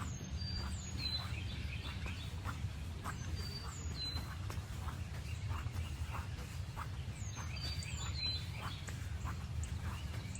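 Footsteps on a forest path, about two steps a second, with birds singing phrases of short high descending whistles three times, and a steady low rumble underneath.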